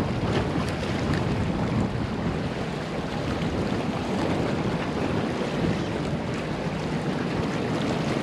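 Steady outdoor rush of wind on the microphone and moving water, with no engine tone.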